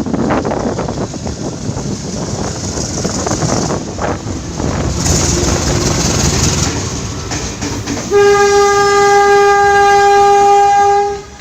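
Train running through with rumbling and rail clatter, then about eight seconds in a CC 201 diesel locomotive's horn sounds one loud, steady blast on a single note, lasting about three seconds before it cuts off.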